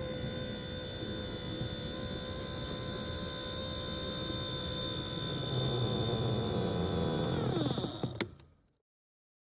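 Mazda CX-5 power seat adjustment motor running with a steady whine, dropping in pitch near the end as it winds down and stopping with a sharp click, followed by silence.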